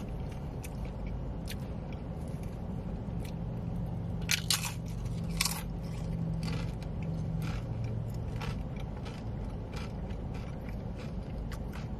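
A person eating close to the microphone: chewing with scattered crisp crunches and small mouth clicks, the loudest crunches about four and five and a half seconds in.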